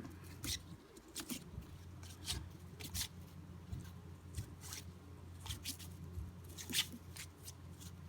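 Cardboard trading cards being flipped and slid through the hands one after another: irregular soft clicks and rustles, over a steady low hum.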